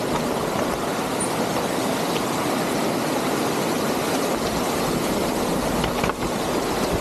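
Mountain bike rolling down a dirt trail: a steady rumble of tyres on the ground and the bike rattling over roots and rocks, with a few light clicks.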